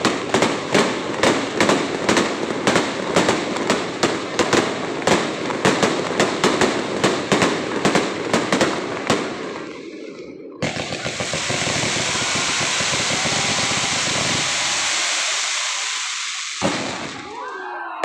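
A fireworks display: rapid sharp bangs of aerial shells, several a second, for about nine seconds, then fading. A sudden steady hiss of fireworks starts just after the bangs stop and lasts about six seconds, before more bangs and crackling near the end.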